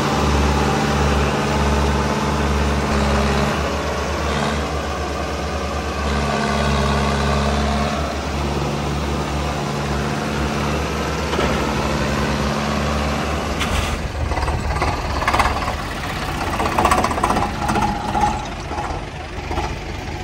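Mahindra Arjun Novo tractor's diesel engine running at steady revs as it works through mud and tall grass. About two-thirds of the way through it gives way to a rougher, clattering engine sound.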